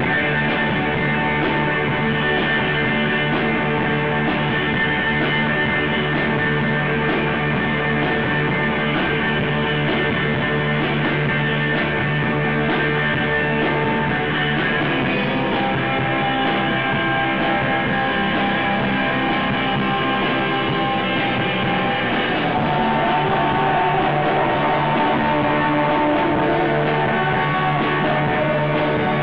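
Live rock band playing, with electric guitar prominent.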